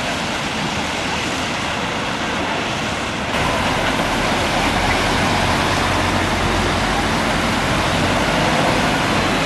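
Steady road traffic noise with a low engine rumble. It steps suddenly louder about three seconds in.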